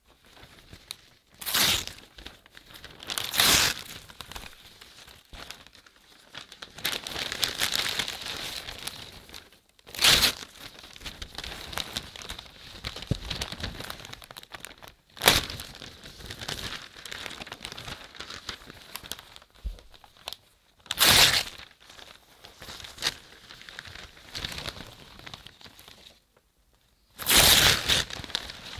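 A paper poster being pulled and torn off a wall, several times over: about six sharp ripping tears, with paper crinkling and rustling between them.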